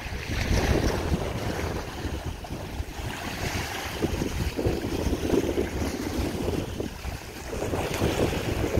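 Wind buffeting the microphone over moving, splashing water, a steady rumbling noise.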